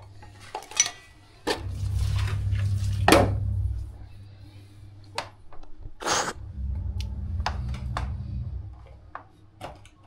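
Metal fittings of a refrigerant gauge manifold and its hose clinking and clicking as they are handled and connected to an R600a gas can. There are two short bursts of hiss, about three and six seconds in, and a low steady hum comes and goes.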